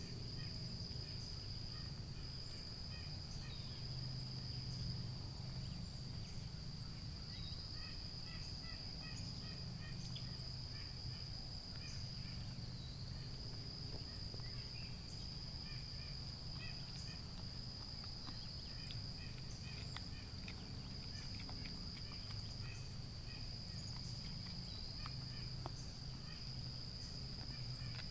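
Summer evening insect chorus: a steady, unbroken high-pitched drone with scattered short chirps, over a low steady hum.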